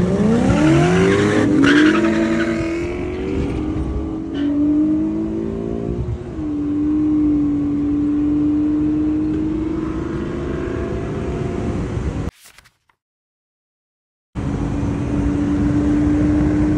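Car engines launching hard from a standing start, revving up in rising sweeps through the first gears, then settling into a steady drone at constant speed. About three-quarters of the way through, the sound cuts to silence for about two seconds, then the steady engine drone returns.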